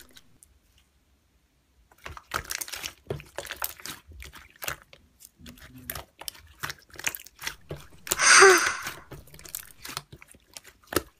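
Clear slime being squished and stretched by hand, starting about two seconds in: a run of small sticky clicks and pops. About eight seconds in there is a louder breathy burst lasting about a second.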